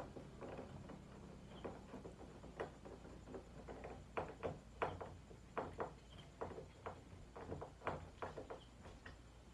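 Hand work on a metal shelf bracket against the wall: a run of faint, irregular clicks and light taps, coming more often from about halfway through.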